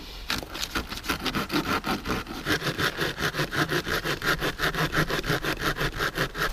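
Kershaw folding saw cutting through a dead fallen branch in rapid, even back-and-forth strokes, about five a second; the saw's teeth cut on the pull stroke.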